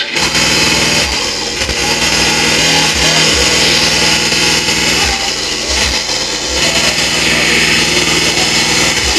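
Speedcore DJ set played loud through a club sound system: a machine-gun-fast distorted kick drum under harsh, buzzing distorted synth tones. The kicks drop out briefly a couple of times.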